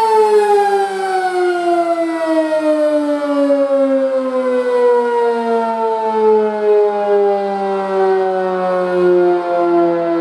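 Sentry 15V2T outdoor warning siren winding down at the end of its full-alert steady tone: the held note starts to fall right away and slides slowly and evenly lower throughout as the rotor coasts down.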